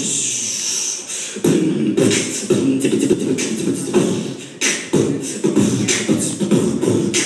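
Amplified beatboxing with vocal sounds. A long hiss opens it, and after a short dip the beat comes back in about a second and a half in, at roughly two strokes a second.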